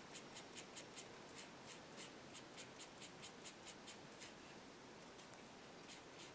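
Faint scratchy strokes of a paintbrush worked back and forth, loading it with paint, about four strokes a second. They pause about four seconds in and resume near the end.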